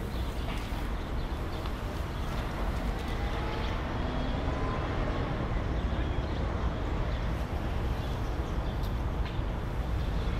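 Steady low outdoor rumble, with a faint sound gliding in pitch around the middle.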